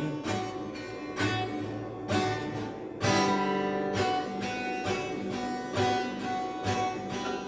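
Acoustic guitar strummed in a steady rhythm, about one stroke a second, between sung lines. No voice.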